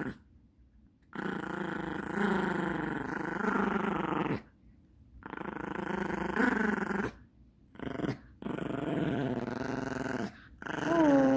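Yorkshire terrier growling playfully through a plush toy held in its mouth, in long stretches of a few seconds each broken by short pauses.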